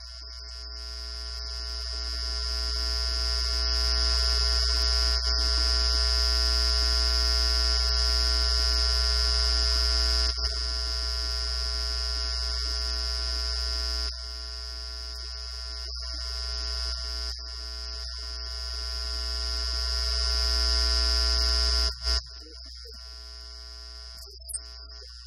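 Steady electrical hum with a high whine and buzz over it, growing louder over the first few seconds, dropping abruptly about halfway through, swelling again and then cutting off suddenly a few seconds before the end.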